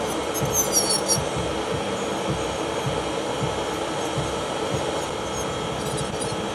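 Electric nail drill (e-file) running with its bit grinding off old gel from a fingernail, an irregular rubbing scrape over the motor's steady whine, with a few brief high squeaks about a second in. Under it runs the steady whir of a nail dust collector's fan.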